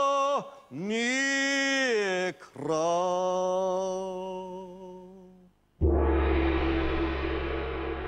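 Solo voice singing slow, long-held notes that slide into and out of pitch, fading out. About six seconds in it cuts suddenly to loud outdoor ambience with a steady low rumble.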